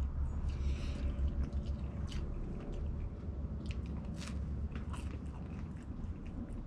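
A person biting into and chewing a slice of cheese pizza, with many small, irregular crunches from the crust.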